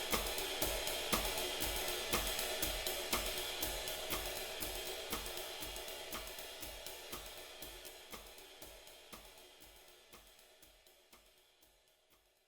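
The tail of an ambient music track: a steady drum beat of cymbal and hi-hat ticks over soft kick pulses, with an accent about once a second, fading out gradually to silence.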